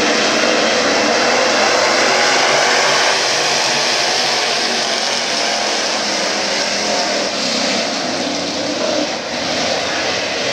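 Several dirt late model race cars' V8 engines running together as the cars circle the track, a loud, steady drone that eases slightly after about three seconds.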